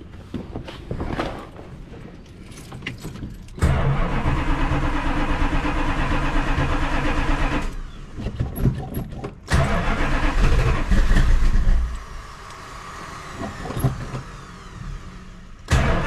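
1968 Dodge Charger's 383 V8 being started cold: it cranks, fires about four seconds in, then falters and picks up again twice. The engine is cold natured, reluctant to run smoothly until warm.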